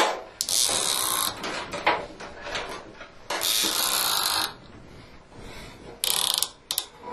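Rope ratchet light hangers being pulled to raise a grow-light reflector: three bursts of cord running through the ratchets, the second the longest at about a second, with small clicks and knocks of the hardware in between.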